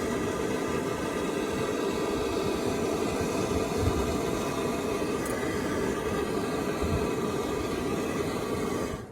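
Chevrolet Tahoe's engine running steadily at idle, warming the exhaust to help free a seized O2 sensor, then shut off abruptly about nine seconds in.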